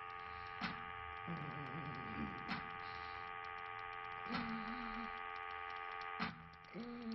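Mechanical ambience of a machine: a steady hum of several held tones, with a sharp tick about every two seconds, four in all, and short wavering pitched groans between the ticks.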